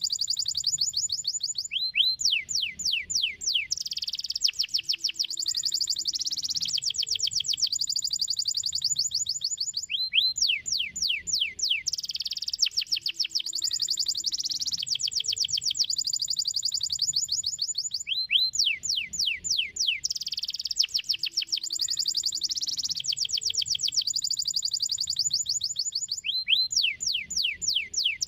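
Domestic canary singing: long runs of very rapid trills, broken about every eight seconds by a series of quick downward-sweeping notes, the same sequence of phrases coming round again each time.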